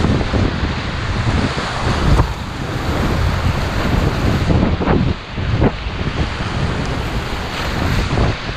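Whitewater rapids rushing and churning around an inflatable kayak, with a few sudden louder splashes, and wind buffeting the microphone.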